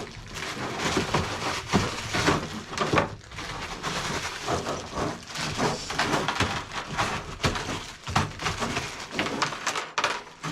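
Rustling and small clicks of hands rummaging through a bag of small RC body clips.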